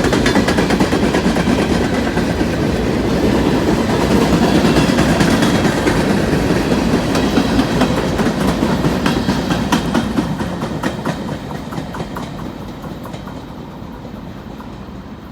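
Freight cars of a BNSF manifest train rolling past, wheels clicking over rail joints over a steady rumble. The sound fades out over the last few seconds as the train moves off.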